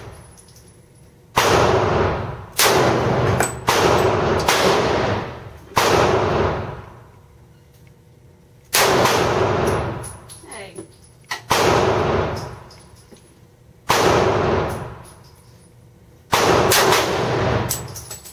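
About nine gunshots, each followed by a long ringing echo. The first five come about a second apart; the last four are slower, two to three seconds apart.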